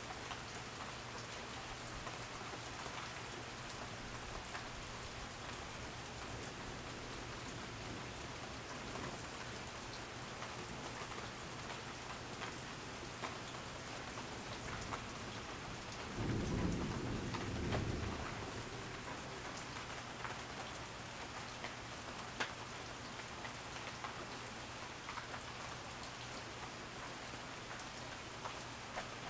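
Steady rain falling, with scattered drip ticks. A short low rumble of thunder, about two seconds long, comes a little past the middle and is the loudest sound.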